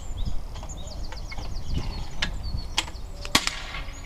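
Birds singing in repeated high trills, with a few sharp cracks, the loudest a little over three seconds in.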